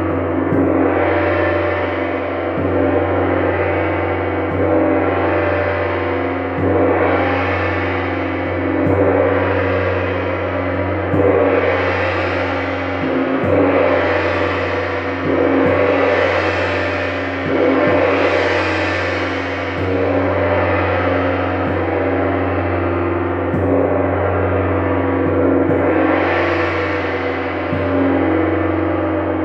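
Gong played continuously in a sound-therapy session, struck about every two seconds, each stroke swelling into a long ringing wash over a steady deep hum.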